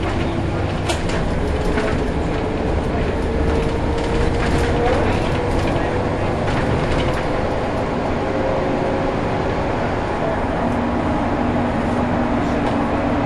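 Scania-engined Alexander Dennis Enviro 300 single-deck bus heard from inside the saloon while under way: a steady engine and road drone with a faint whine that slowly rises and then drops back about five seconds in, and occasional light rattles.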